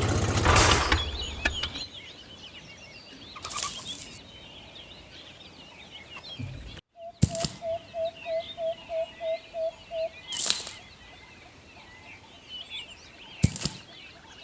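Many small birds chirping in the background. About halfway through comes a run of about ten short, evenly spaced beeps, and there are a few brief bursts of noise.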